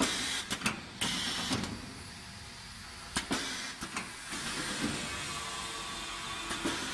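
Latch handle of a stainless-steel electrical cabinet door being worked and the metal door opened: a quick series of sharp clicks and knocks in the first second, and a couple more a few seconds in, over a steady hiss.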